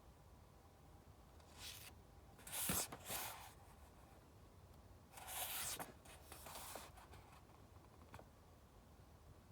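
Paper pages of a book rustling as they are handled and turned, in two short bouts about three seconds apart, with a faint click near the end.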